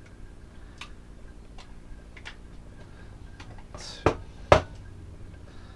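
Small clicks and taps of hands and a screwdriver working wires at the terminals of a plastic controller housing, with a brief scrape and then two sharp knocks, half a second apart, about four seconds in.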